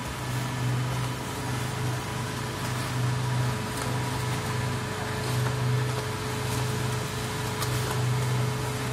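Pan mixer of 1000 kg capacity running under load: a steady motor and drive hum with a low drone that swells and eases every second or so and a constant higher whine above it, as the paddles churn through a granular mix. A few faint ticks sound over the hum.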